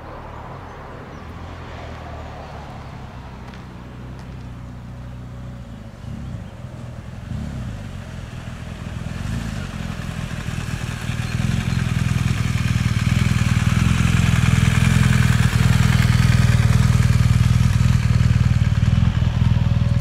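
Twin turbofan engines of a Bombardier Challenger business jet (General Electric CF34s) on final approach, a low rumble and rushing jet hiss that grow steadily louder as the aircraft closes in, peaking over the last several seconds.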